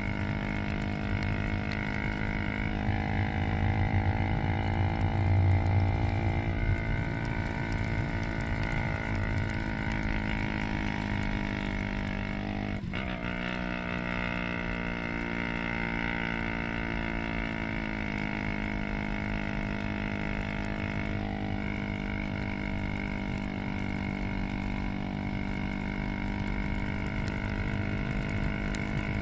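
Motorcycle engine of a roofed habal-habal motorcycle taxi running steadily under way, its note shifting a few times, with a sharp brief break in pitch about 13 seconds in.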